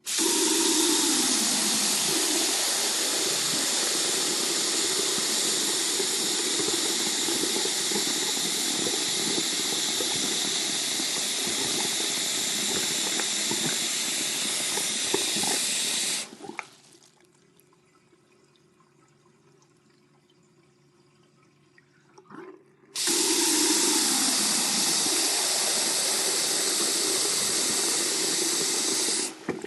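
High-flow sink faucet turned fully open, water gushing steadily into the sink. It shuts off about 16 seconds in, stays off for about six seconds with only a few faint ticks, then is turned fully on again and runs until just before the end.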